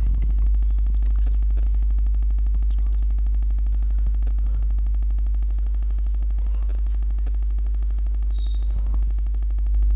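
Loud, steady low electrical mains hum, with a fainter steady tone above it and a few faint ticks.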